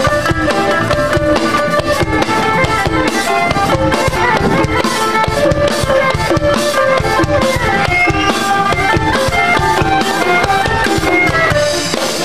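Live traditional Khmer ensemble music: a melody on wooden xylophone and bowed fiddle over a steady drum beat.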